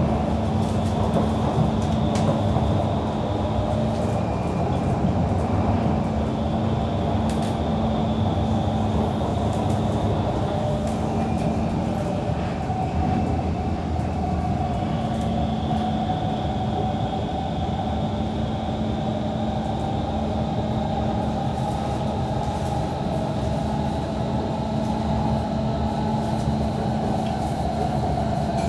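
Kawasaki C151 metro train with permanent-magnet synchronous traction motors running along the line, heard on board: a steady rumble of wheels and running gear with a steady motor and inverter whine, and a second whine that rises in pitch near the end.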